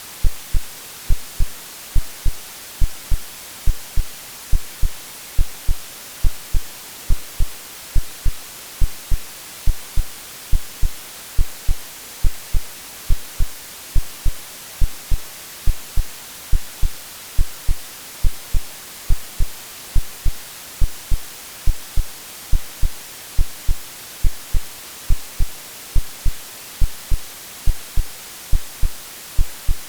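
Synthetic heartbeat, AI-generated, beating steadily as low paired lub-dub thumps a little more than once a second, over a constant white-noise hiss. It is a womb-like heartbeat-and-white-noise soothing sound for settling a baby.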